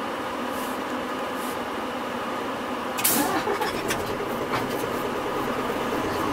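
Interior running sound of a Hino Rainbow medium-size non-step diesel city bus: a steady engine drone. About three seconds in there is a short sharp hiss, then a few clicks and rattles, and the engine sound grows a little louder.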